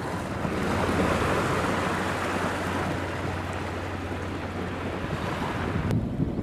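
Churning, swirling tidal water rushing along a moving sailing yacht's hull, with wind buffeting the microphone and the low, steady hum of the yacht's engine underneath. About six seconds in, the sound cuts abruptly to a quieter, thinner background.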